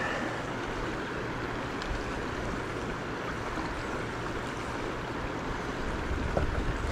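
Shallow river water flowing steadily over rocks, an even rushing wash.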